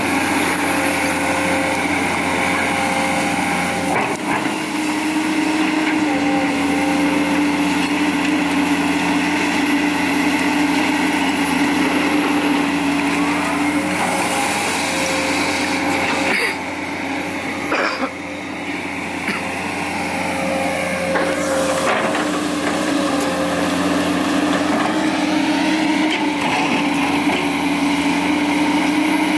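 Komatsu PC200 hydraulic excavator's diesel engine running steadily under working load as it digs and lifts garbage, its pitch and loudness shifting with the work and dipping briefly about two thirds through, with a few clunks from the bucket and machine.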